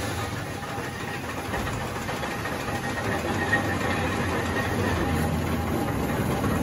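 1920s Ruston Hornsby 90-ton steam face shovel's machinery running up close, its steam engine and large toothed drive gear working: a steady, dense mechanical noise with a faint steady whine.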